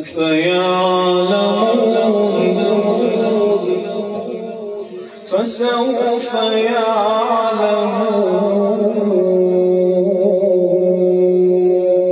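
A man reciting the Quran in the melodic, drawn-out tajweed style, holding long ornamented notes. A brief break for breath about five seconds in, then a second long held phrase.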